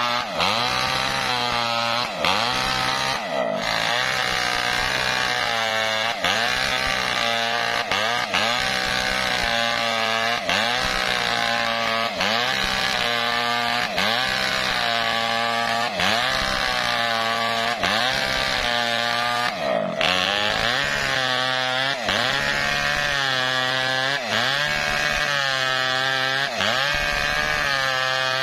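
Maestro two-stroke chainsaw at full throttle, rip-cutting a coconut-palm (glugu) log lengthwise. The engine pitch sags under load and recovers about once every second or so as the bar is worked through the wood.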